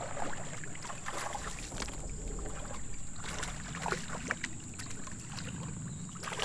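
Fishing reel being cranked and rod handled while a hooked smallmouth bass is brought alongside a kayak: scattered irregular clicks and knocks over low water and hull noise, with a splash near the end as the fish reaches the surface.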